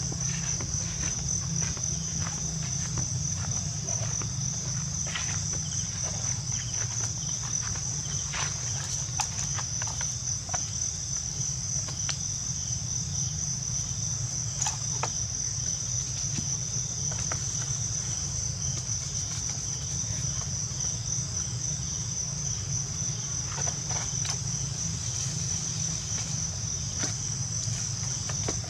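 A steady, high-pitched insect drone, over a low rumble, with scattered faint clicks and rustles.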